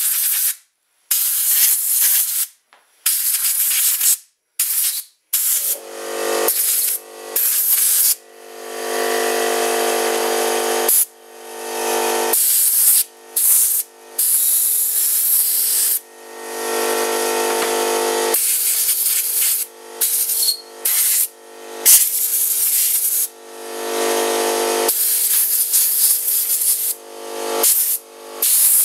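Compressed-air blow gun blasting in repeated short bursts into the carburetor bay of a Stihl MS 290 chainsaw, blowing out caked sawdust. A loud hiss, with a pitched whistling tone in many of the blasts from about six seconds in.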